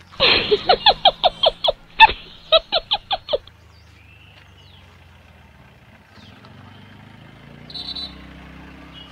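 A laughter sound effect: a quick, loud run of 'ha-ha' pulses lasting about three and a half seconds, then faint roadside background noise.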